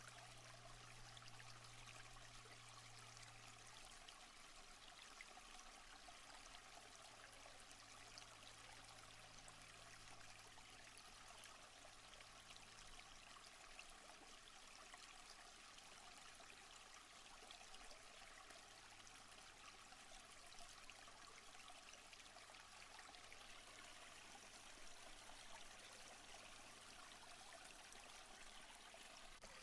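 Faint, steady rush of a stream and small waterfall. A faint low hum eases off after the first few seconds.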